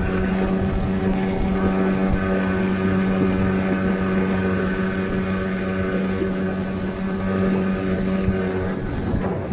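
Outboard motor on an inflatable boat running at a steady speed, an even, unchanging engine hum.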